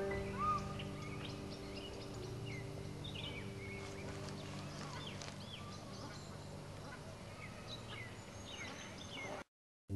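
Birds calling: many short chirps and whistles, some rising and some falling, over a low steady hum that fades away over the first several seconds. The sound cuts off suddenly near the end.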